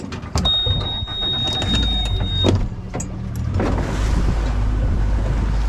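Boat motor running as the boat moves off slowly, with a steady high electronic beep lasting about two seconds near the start. Rushing water and wind noise rise after about three and a half seconds as the boat gets under way.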